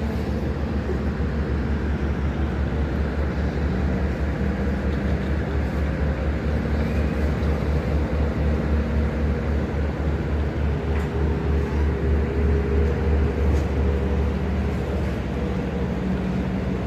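Tugboat's diesel engine running under load while pushing a fishing vessel out of its berth: a deep, rapid throb with steady hums above it, swelling and pulsing harder about halfway through and easing a little near the end.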